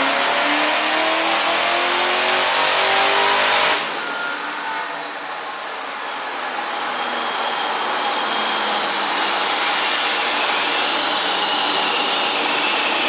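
Fox-body Ford Mustang LX engine pulling hard on a chassis dyno, its pitch climbing steadily, then the throttle shuts abruptly about four seconds in. Afterwards the car coasts down on the rollers with a steady rushing whir and a faint high whine.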